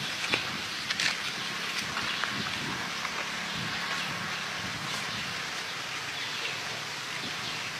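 Steady hiss of outdoor background noise, with a few faint clicks in the first two seconds.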